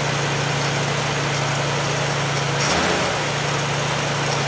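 Ford inline-six engine with an Autolite 1100 one-barrel carburetor running at a steady fast idle just after a cold start. About three seconds in its note briefly changes as the carburetor's throttle linkage is worked by hand.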